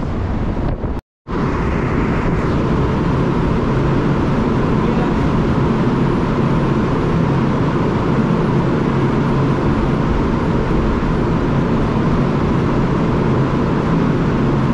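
Ship's machinery running at anchor: a steady, loud drone with a low hum and a fainter higher tone, cut off briefly about a second in.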